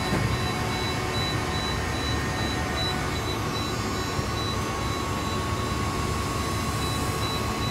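Hydraulic roll-splitter guillotine running while its blade cuts through a paper roll: a steady mechanical hum with a constant high whine.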